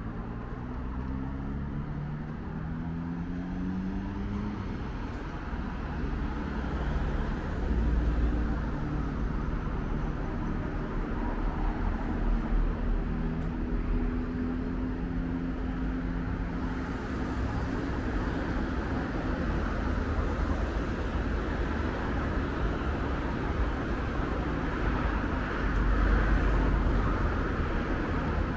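Road traffic on a city boulevard: car engines running past over a steady low rumble, one vehicle's engine note rising as it pulls away in the first few seconds, with louder passes about a third of the way in and near the end.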